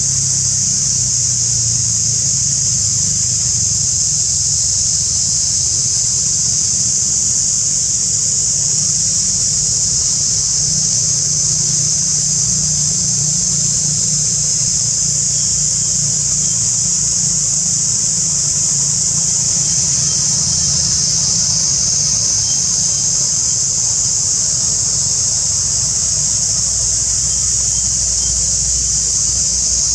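Loud, steady high-pitched drone of an insect chorus, with a low steady rumble underneath.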